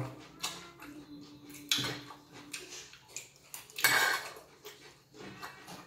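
Metal cutlery scraping and clinking on ceramic plates: a handful of separate short strokes, the two loudest about two seconds in and near four seconds in.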